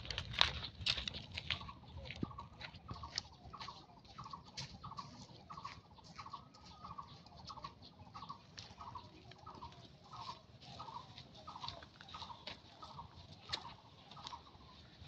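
A bird calls a long, even series of short falling notes, about two to three a second, which fades out after about twelve seconds. Under it are scattered crunches of dry leaf litter, loudest in the first second.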